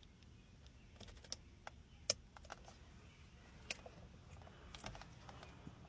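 Faint, sparse clicks and light taps, a second or more apart, from hands and tools working on the car.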